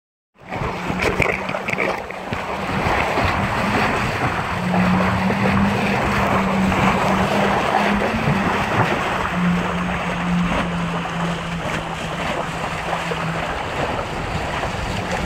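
Water rushing and splashing past the hull of a Hobie Wave catamaran under sail, with wind buffeting the microphone. A low steady hum comes and goes.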